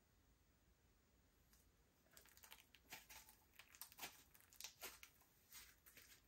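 Faint, irregular sticky clicks and crackles of slime being kneaded and stretched by hand, starting about two seconds in.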